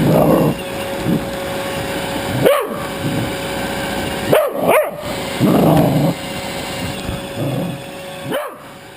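A dog barking and growling in bursts, with a few short high yips in between. A faint steady tone runs underneath.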